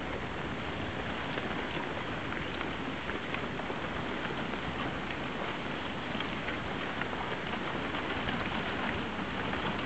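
Drift ice and slush on a frozen-over river: a steady crackling hiss made of many small ticks, with a low rumble underneath.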